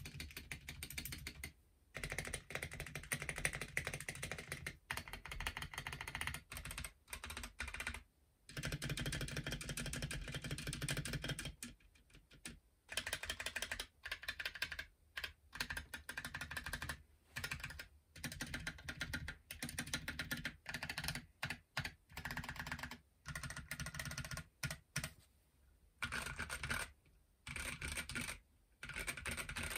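Typing on a Zeeyoo 65 mechanical keyboard with stock Boba U4T tactile switches (62 g springs) on a bare desk with no deskmat: fast, dense runs of keystrokes broken by brief pauses.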